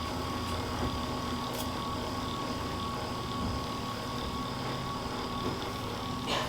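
Electric handheld massager running steadily on the back, a constant motor drone with a thin whine.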